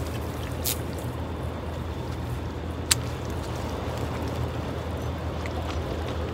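Steady low rumble of open-air ambience by the water, with one sharp click about three seconds in.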